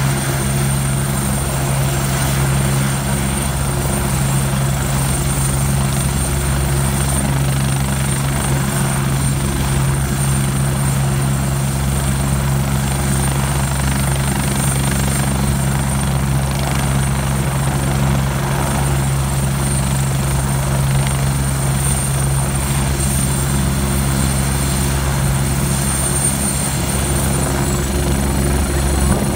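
Agusta A109K2 helicopter running on the ground, its twin turboshaft engines and main rotor turning steadily: a low, even rotor drone with a thin, steady high turbine whine above it.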